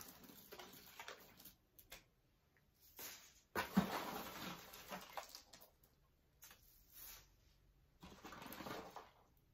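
Paper packaging and shredded cardboard filler rustling and crinkling in several short bursts as things are pulled out of a box, with a single sharp knock about four seconds in.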